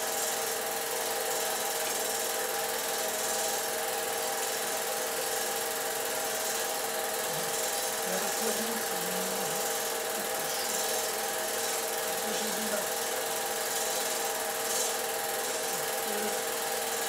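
Film projector running: a steady mechanical whir with a constant hum and hiss, with no change throughout.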